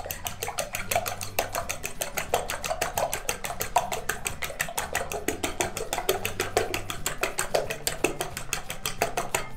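A fork beating eggs in a glass bowl: rapid, even clicks of the tines against the glass, kept up without a break.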